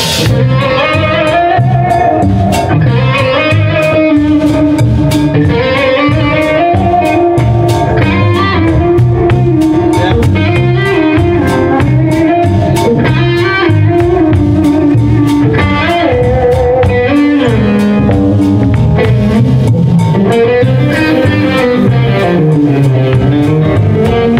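Live band with an electric guitar taking the lead, playing a melodic line with bent and sliding notes over drums and bass.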